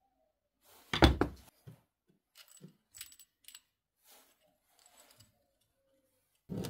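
Metal drill chuck being handled: a sharp clatter of clinks about a second in, then scattered light metallic clicks as the chuck is turned in the hands, and another knock near the end.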